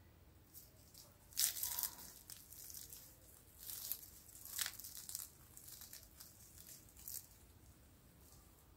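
Crisp, flaky baked puff pastry crackling and flaking as hands break a puff pastry pizza apart. Several short crackles, the loudest about a second and a half in, then smaller ones around four, four and a half and seven seconds in.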